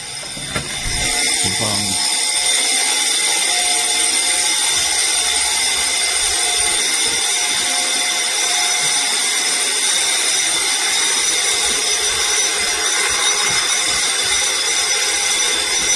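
Building fire alarm ringing loudly and without a break, a dense high-pitched ringing that grows louder in the first second or two. It is a false alarm with no actual fire, which the resident puts down to someone upstairs smoking or lighting a fire.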